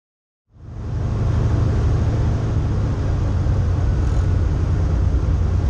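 De Havilland DHC-2 Beaver's radial engine and propeller droning steadily, heard from inside the cabin, fading in about half a second in from silence.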